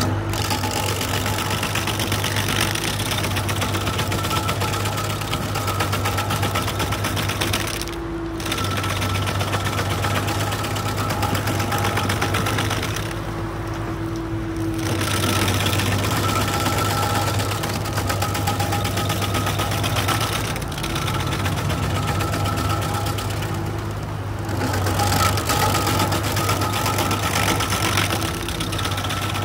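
Carlton stump grinder's engine running steadily under load while its spinning cutter wheel grinds into a wood stump. The grinding noise eases off in three short breaks while the engine keeps running.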